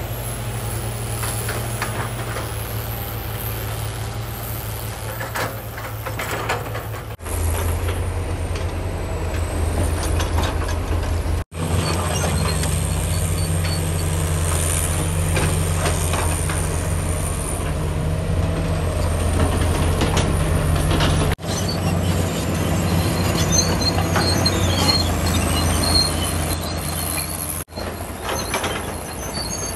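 Heavy diesel earthmoving machinery, an excavator and bulldozer at work, running steadily under load, with a faint high whine that wavers in pitch. The sound breaks off abruptly and resumes several times.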